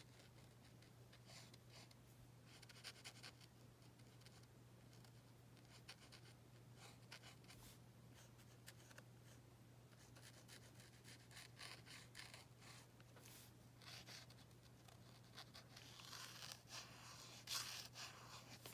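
Faint scratching of a Posca paint marker's nib on card, in short strokes that come in bunches and grow busier near the end, over a low steady hum.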